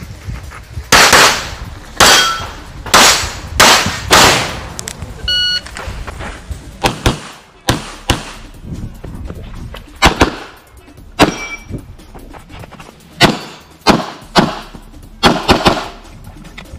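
Glock 17 9mm pistol fired in rapid strings of shots: a run of about five shots, a pause, then further pairs and groups of shots through the rest of the course.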